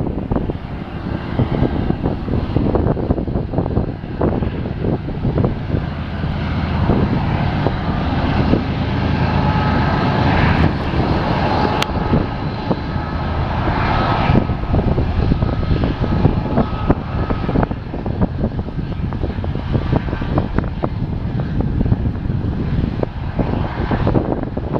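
BNSF freight train's diesel locomotives running under load with a steady low drone, with faint high tones in the middle.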